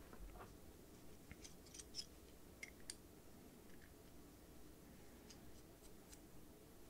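Near silence with a few faint, light clicks and taps of small metal fountain pens and their caps being handled and posted.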